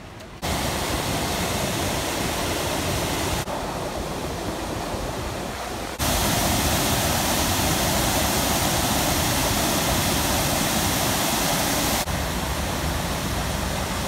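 Waterfall: white water pouring over rock ledges into a plunge pool, a loud steady rush with no pitch. Its loudness jumps up or down suddenly several times, about half a second, three and a half, six and twelve seconds in.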